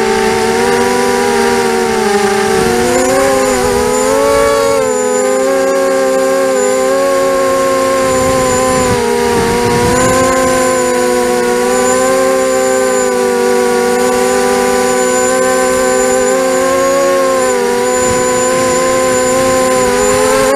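Miniquad racing drone's four T-Motor 1804 brushless motors and propellers whining in flight, the pitch rising and falling a little with throttle. It is heard through the onboard camera's microphone.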